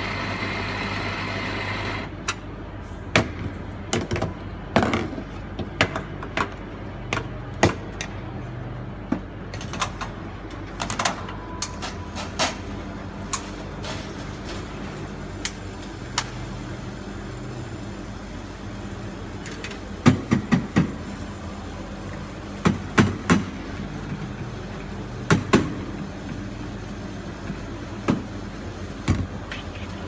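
Espresso-bar work sounds at a La Cimbali M39 espresso machine: a steady hum with scattered sharp knocks and clinks of metal and glass, louder for the first two seconds, and quick clusters of knocks about two-thirds of the way through while espresso shots pour.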